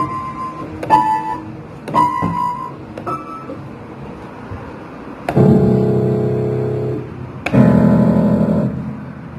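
Toy piano being played: four short single notes about a second apart, then two longer, fuller held sounds a few seconds in.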